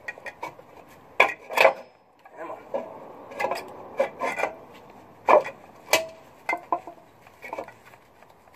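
Metal parts scraping, rubbing and clinking from hand work on a military truck's rear wedge-brake assembly, in irregular strokes with several sharp clinks that ring briefly, the loudest around a second and a half and five and a half seconds in.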